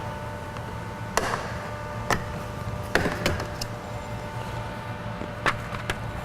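Sharp plastic clicks and snaps, about six spread over several seconds, from a pick prying a trim cover off a pickup's interior door panel as its clips let go. They sit over a steady low hum.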